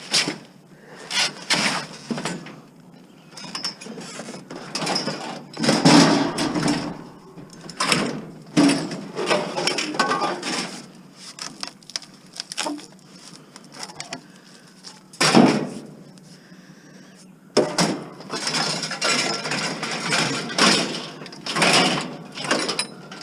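Scrap metal clanking and scraping as pieces are shifted and stacked on a loaded truck, a run of irregular knocks and rattles with loud crashes about six and fifteen seconds in and a continuous clatter near the end.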